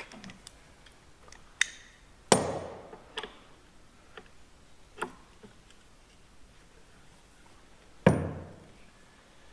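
Sharp metal-on-metal knocks and clanks from hand tools worked against a steel tank clutch assembly: about five strikes, the two loudest ringing on for a moment afterwards.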